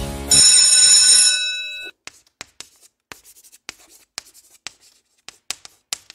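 A bell rings once, loudly, and fades out over about a second and a half. Then chalk writes on a blackboard in short, irregular scratches and taps.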